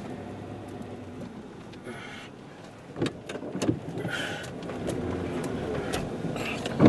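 Car cabin noise: a steady low rumble of the vehicle's engine and road, with a few sharp clicks and knocks about three seconds in.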